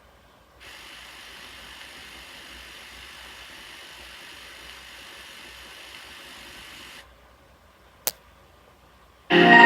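Steady hiss of VHS tape noise that starts about half a second in and cuts off suddenly at about seven seconds, followed by a single sharp click, then music with mallet-like notes starting near the end.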